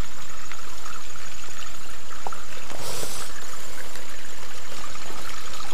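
Shallow spring-fed creek water trickling over rock, a steady even rush.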